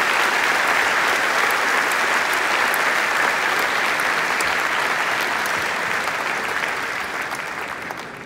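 Large audience applauding steadily, then dying away over the last two seconds.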